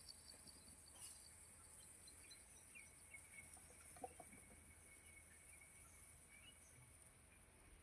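Near silence: faint outdoor ambience with a steady high insect drone and a few faint bird chirps.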